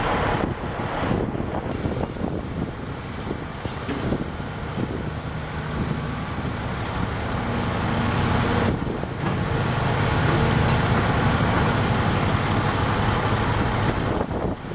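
Volvo EC210C hydraulic excavator's diesel engine running and working, with the sound changing abruptly a few times; the engine note grows stronger and steadier in the later part.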